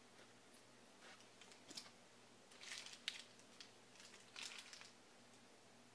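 Faint crinkling of a small plastic icing bag from a Kracie Popin' Cookin' donut kit as it is handled and squeezed, in a few short bursts.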